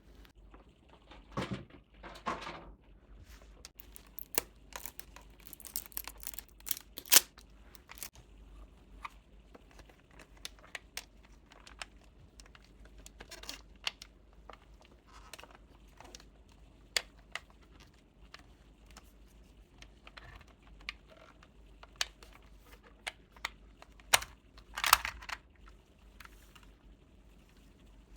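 Hands unboxing small mystery-box packaging: paper and plastic tearing and crinkling in short bursts, with many light clicks and taps as the pieces are handled.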